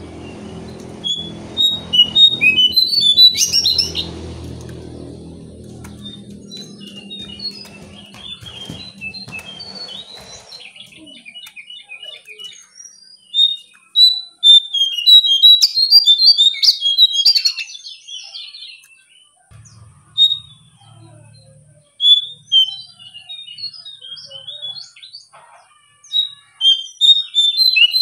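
Caged jongkangan songbird calling in clusters of sharp, high chirps and short twittering phrases, with pauses between them. A low steady hum underneath fades out over the first ten seconds.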